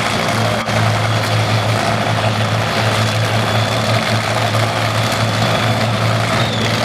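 Methanol-burning 471 ci V8 of a Top Methanol drag racing car idling steadily with a loud, low, choppy drone and no revving.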